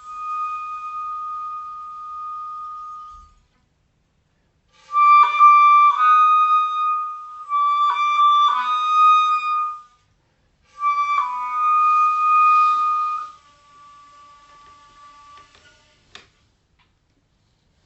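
Solo instrumental music: a single melodic instrument plays slow phrases of long held notes, three phrases with short pauses between them. A single click follows near the end, then silence.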